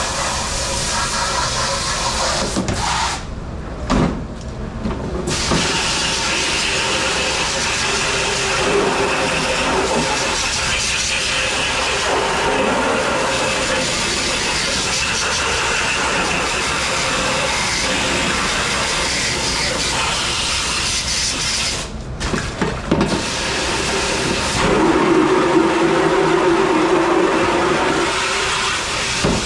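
Commercial pre-rinse spray nozzle hissing as it blasts water onto plastic food tubs and lids. The spray stops briefly twice, with a few knocks of plastic being handled, and turns louder and deeper for a few seconds near the end.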